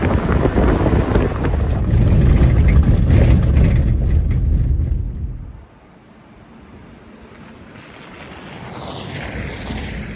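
Loud low rumbling noise that cuts off abruptly about five and a half seconds in, followed by a quieter whooshing noise that swells toward the end.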